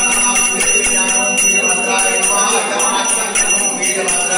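Small brass puja hand bell (ghanti) rung continuously, its high ringing tones sustained by repeated strikes. A man chants beneath it.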